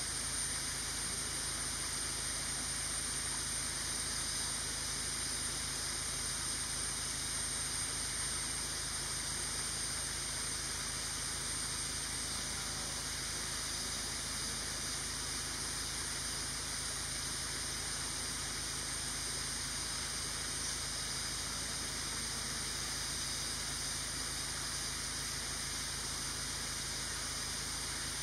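Steady outdoor hiss with a constant high-pitched drone over it, unbroken and unchanging.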